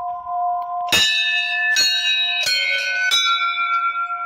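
Hanging temple bells being rung by hand. A bell rings on from an earlier strike, then from about a second in come four strikes, roughly one every 0.7 seconds, each leaving a long, high, overlapping ring.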